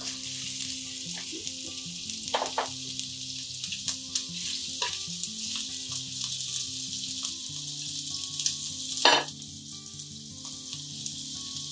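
Sliced onions sizzling in hot oil in a stainless steel kadai, a steady hiss, with a sharp clack about nine seconds in.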